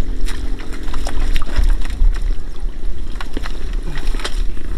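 Tractor engine running with a steady low rumble while mud and water slosh around it, with scattered clicks and knocks.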